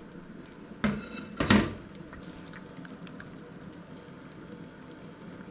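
Two clattering knocks of metal kitchenware, one about a second in and a louder one half a second later, each ringing briefly.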